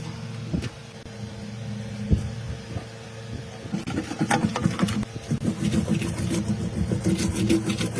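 A motor running steadily with a low hum. About halfway through, a busy clicking and clattering starts over it.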